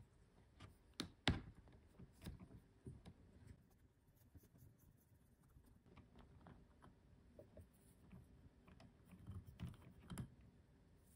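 Faint, scattered clicks and light taps of a small metal wheel-nut wrench working the hex wheel nut off an Axial SCX24 micro crawler's wheel. There is a sharper click a little over a second in, several more in the first few seconds, and a few again near the end.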